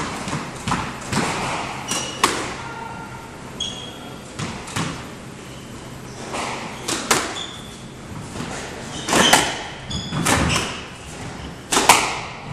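Squash ball hit by rackets and slapping off the court walls, with shoes squeaking on the wooden floor. The sharp hits come every second or two, thickest in the second half.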